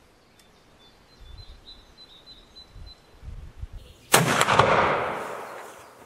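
A single rifle shot from a J. P. Sauer und Sohn single-shot break-action stalking rifle firing a black-powder 11 mm Mauser cartridge, about four seconds in. A long echo dies away over the next two seconds.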